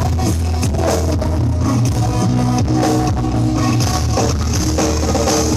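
Loud music with a drum beat and heavily boosted bass, played through a carnival sound system.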